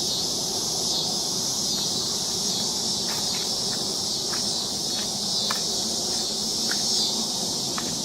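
Steady, high shrill chorus of insects over a low background rumble, with a few faint short ticks scattered through.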